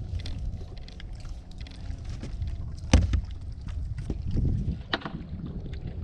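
Wind rumbling on the microphone aboard a small fishing boat, with scattered small knocks and clicks. A loud sharp knock about halfway through and a smaller one near the end.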